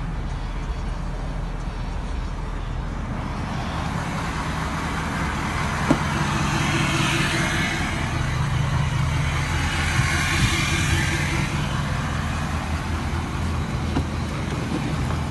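A motor vehicle's engine running steadily, its low hum growing stronger from about six seconds in. There is a single sharp click at about the same moment.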